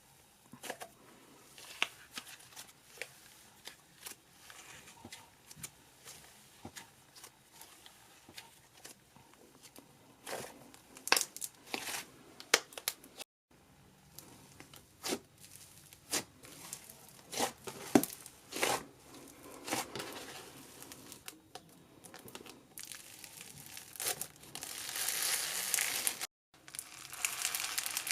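Slime being squished and stretched by hand, giving sticky clicks, pops and crackles. Near the end it turns into a denser, louder crinkling crackle, and the sound cuts out abruptly twice.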